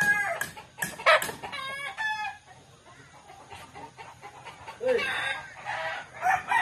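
Rooster crowing with chickens clucking: a crow trails off at the start, short calls come about a second in, and another long crow begins near the end.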